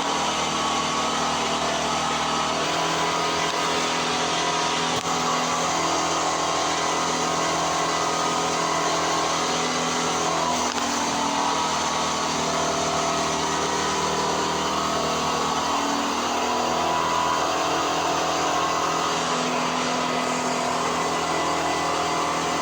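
3D printer running: stepper motors whine in tones that jump to new pitches every second or so as the head moves, over a steady hum.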